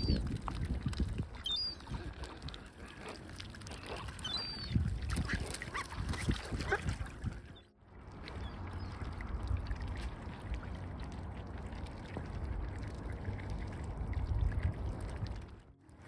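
Birds calling, with three short high chirps among scattered calls in the first few seconds. After a sudden break about halfway, steady low wind rumble on the microphone.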